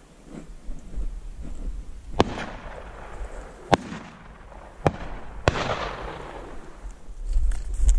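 Four shotgun shots over about three seconds, the first and last trailing off in a long rolling echo.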